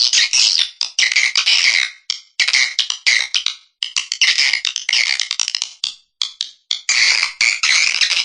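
Swiftlet call recording, the lure sound played to draw swiftlets to nest in a swiftlet house: rapid, dense twittering chirps, high-pitched, coming in bursts of one to two seconds with short pauses between.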